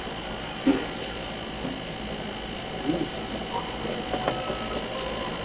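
A steady hum, with a short knock just under a second in and a few lighter clicks later as a spoon scrapes sardines from a dish onto a plate of rice.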